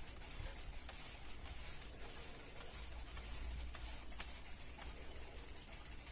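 Vintage Rhythm 4RE419 alarm clock ticking faintly, soft clicks about every second over a low hum.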